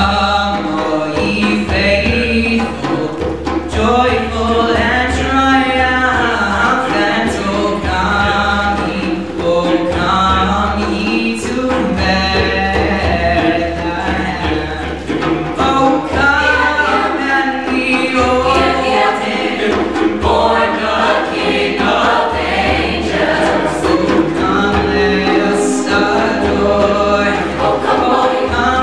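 Mixed choir of male and female voices singing.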